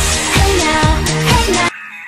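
Pop music with a steady drum beat and a melody line, cutting off suddenly near the end.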